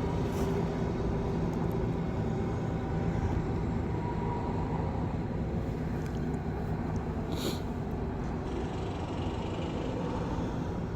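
Steady outdoor background rumble with a faint low hum, like distant traffic or machinery, and one short high hiss about seven and a half seconds in.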